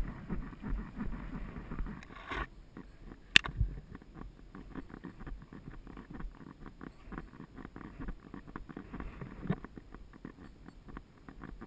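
Horse's hooves on a dirt and grass track, heard as a rapid run of small knocks, with one sharp click about three and a half seconds in.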